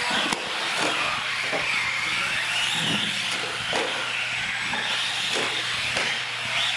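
Radio-controlled UTV driving on a concrete floor: the motor whines, its pitch rising and falling with the throttle, over tyre hiss and a few light knocks.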